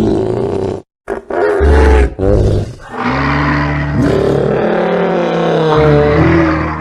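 Dinosaur creature sound effects: a run of deep bellowing calls, three short ones followed by one long held call of several pitches layered together.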